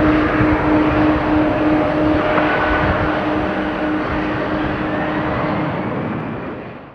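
Jet engine noise of a McDonnell Douglas MD-11F trijet freighter after takeoff: a steady rumble with a droning tone, slowly growing quieter, then fading out quickly at the very end.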